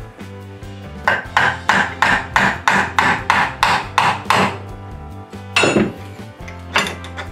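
Claw hammer striking a metal bar set against an electric bike hub motor held in a vise, knocking the motor apart: about a dozen quick blows at roughly three to four a second, then after a pause two more single blows. Background music plays underneath.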